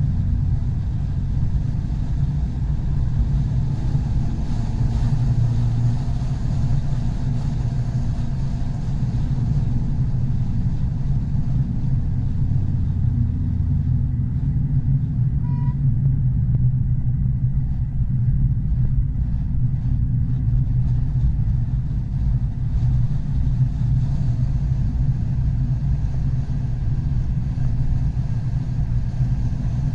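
Car running at speed on a race circuit, heard from on board: a steady low rumble of engine, tyre and wind noise, with the engine note rising and falling a few times with the throttle.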